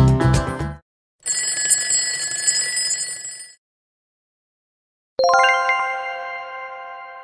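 Quiz sound effects: the background music stops, a bell rings rapidly for about two seconds as the countdown runs out, then a single bright chime strikes about five seconds in and slowly fades, marking the answer reveal.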